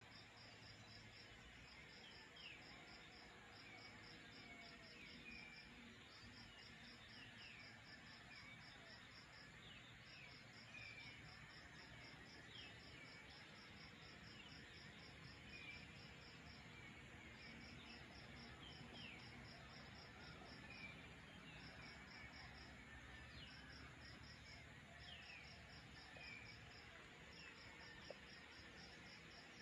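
Faint night insect chorus: a high chirp repeating in rapid pulses, in trains of a second or two with short gaps, over a soft hiss. A few short, faint falling chirps sound in between.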